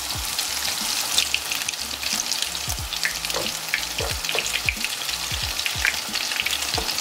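Breadcrumb-coated eggplant frying in a pan of hot oil: a steady sizzle with many small crackling pops.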